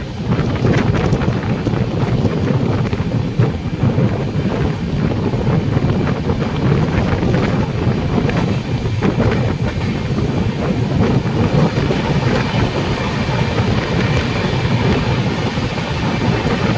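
Moving train's steady running noise: a low rumble of wheels on the rails, with wind buffeting the microphone.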